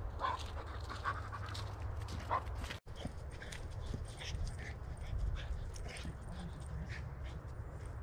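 American Bulldog whining, three short rising whines in the first few seconds, over a steady low rumble.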